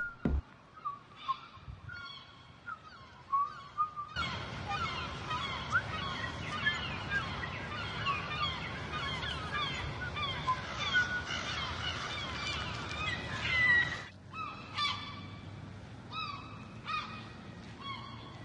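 A flock of birds calling: scattered short calls at first, then a dense chorus of many overlapping calls over a low rumble from about four seconds in until about fourteen seconds, thinning to scattered calls again near the end.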